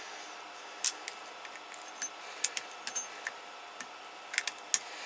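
Knife blade cutting the copper braid of RG213 coax against the edge of a PL259 plug: about a dozen small, sharp metallic clicks at irregular intervals as the strands are snipped off.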